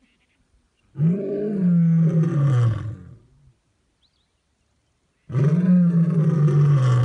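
Male lion roaring: two long roars, one about a second in and another starting about five seconds in, each rising briefly in pitch and then sliding lower.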